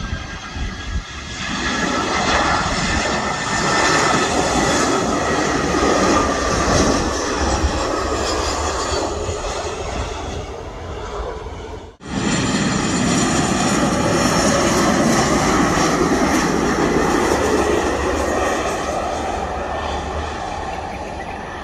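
Passenger aircraft's engines running loud as the plane passes, with whining tones that slowly bend in pitch over a broad rush. The sound builds up over the first couple of seconds, cuts off abruptly about twelve seconds in, and comes straight back just as loud.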